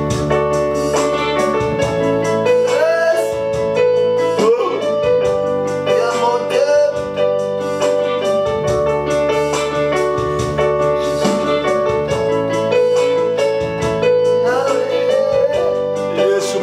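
Electronic keyboard playing slow, sustained chords in a soft worship style, the held notes changing every second or two.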